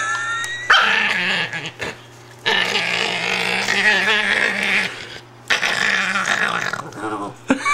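Italian greyhound growling in three long bouts with short breaks between, with brief high rising whines at the start and end. She is upset at being disturbed in her bed.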